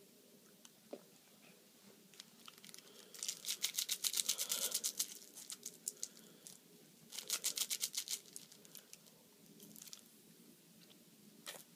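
Fast crackling and crunching from a roll of Smarties candy close to the microphone, in two spells: one of about two seconds starting about three seconds in, and a shorter one about seven seconds in.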